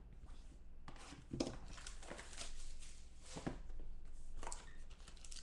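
Hands handling a cardboard trading-card box on a tabletop: scattered rustling with a few sharp knocks.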